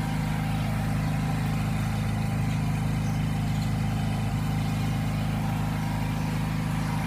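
A building's backup generator engine running steadily with an even low hum, not changing speed.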